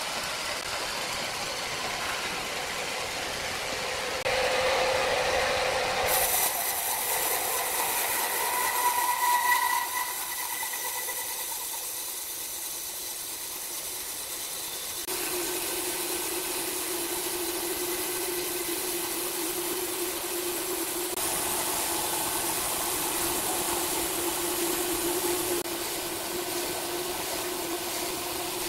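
Large band sawmill running and sawing through a thick log: a steady mechanical whir and hiss from the blade and wheels. The sound changes abruptly several times.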